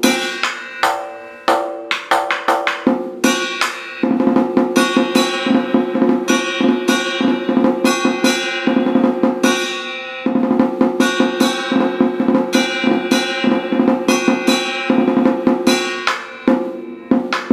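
A large traditional Vietnamese drum, a trống chiến, played with two wooden sticks in a fast rolling beat. Strokes on the ringing head mix with sharp stick clicks. The beat starts with separate accented strokes, runs into two long dense rolls split by a short break about ten seconds in, and goes back to separate strokes near the end.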